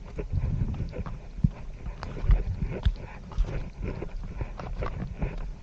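Footsteps of a hiker in slippers climbing a dirt trail covered in dry leaves: irregular dull thumps and crunching leaves, with hard breathing close to a chest-mounted camera's microphone.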